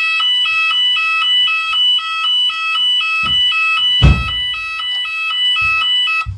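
A shop's voice fire alarm system sounding its alert tone between recorded evacuation messages: two pitches alternating rapidly in a steady, even warble. A few low thumps come under it, the loudest about four seconds in.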